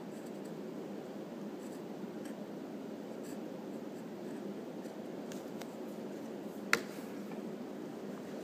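Graphite pencil rubbing and scratching on paper as a drawing is shaded, with one sharp click about two-thirds of the way through.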